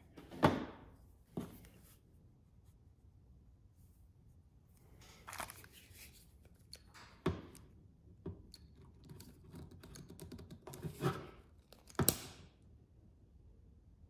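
Small hand-tool work on a bench: a sharp snip about half a second in as flush cutters cut a thin wire, then scattered knocks and clicks of tools and a plastic connector being handled. Near the end come a couple of sharp clicks from a long-neck butane lighter being triggered.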